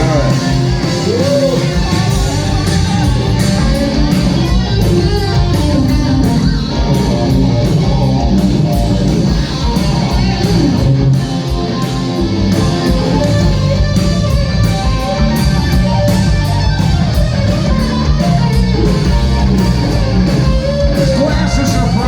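Live rock band playing loud: electric guitar over drums and bass, in a stretch without clear vocals, with a few bent guitar notes.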